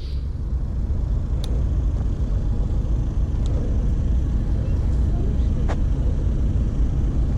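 Steady low rumble of a car just ahead, with a few faint clicks.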